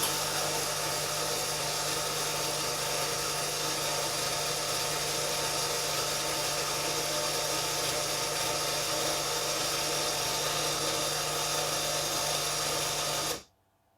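Cino XS Presso Bean E2 coffee vending machine running after brewing: a steady motor whir over a low hum, cutting off abruptly near the end.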